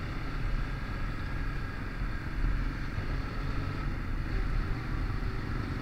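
Motor scooter's small engine running steadily while cruising at low road speed, mixed with wind and road noise.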